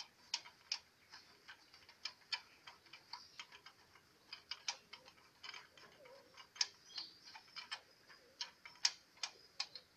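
Light metallic clicks and clinks as small parts and tools are handled on a diesel engine's bare cylinder head during teardown. The clicks are irregular, a few a second.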